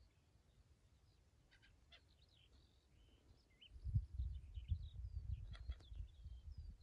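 Small birds chirping and calling in short, varied notes. From a little over halfway in, wind buffets the microphone in gusts with a low rumble that becomes the loudest sound.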